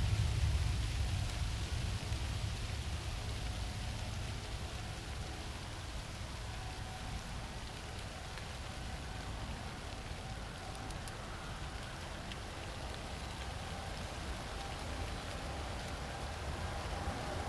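Distant jet engine roar from a Boeing 787-9 Dreamliner, a steady low rumble with a hiss above it that fades over the first few seconds, then holds and swells slightly near the end.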